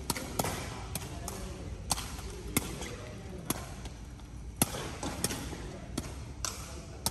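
Sepak takraw balls being kicked and bouncing off the court floor: a string of sharp smacks at uneven spacing, about one or two a second.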